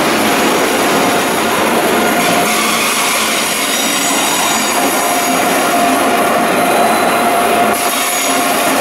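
Train rolling on the rails with a steady loud running noise and wheel squeal; a cluster of high squealing tones sets in about three and a half seconds in and stops suddenly near the end.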